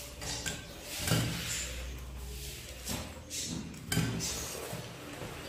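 Eating by hand from steel plates: close chewing and smacking mixed with fingers squishing rice against the plates, coming in irregular bursts with a few sharper knocks.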